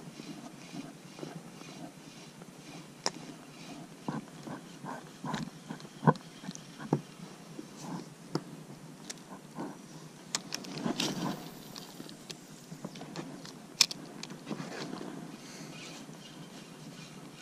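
Irregular sharp clicks and knocks of fishing tackle and gear being handled in an inflatable boat, over a faint low rumble. The loudest clicks come about six seconds and fourteen seconds in, with a busier patch of rustling knocks between them.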